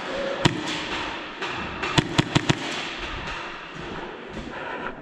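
Airsoft gunfire: one sharp crack, then a quick burst of four shots about a second and a half later.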